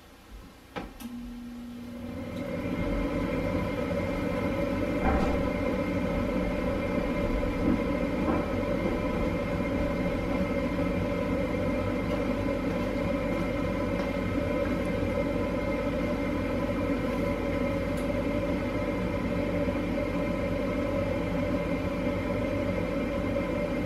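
Newly fitted Bryant/Carrier furnace inducer motor starting about two seconds in, then running with a steady hum and no squeal. A few light clicks come just before it starts.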